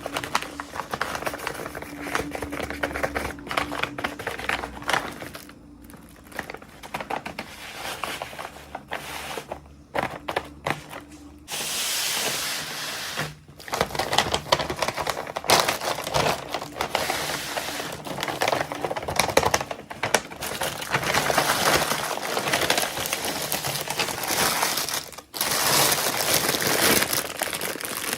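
Toy packaging being handled and opened by hand: plastic and paper crinkling and tearing, with many small clicks and taps. The rustling gets louder and denser from about twelve seconds in.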